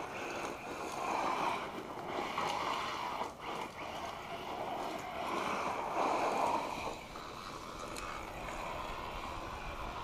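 1/8-scale electric RC car with a Castle Sidewinder 8th brushless combo and a 2200 kV motor on 3S, driving on gravel. The motor's rush and the tyres scrabbling on gravel rise and fall in swells, loudest about six seconds in as the car slides and throws up dust, then easing.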